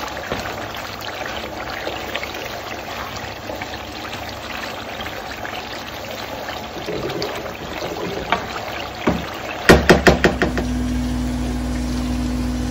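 Tomato and onion sauce cooking in a pan on a gas hob, stirred with a wooden spoon: a steady sizzle with light crackles and scrapes. About ten seconds in comes a quick run of sharp knocks, then a steady low hum.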